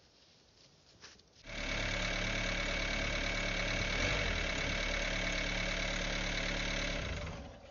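A vehicle engine idling steadily. It comes in abruptly about a second and a half in and fades out near the end.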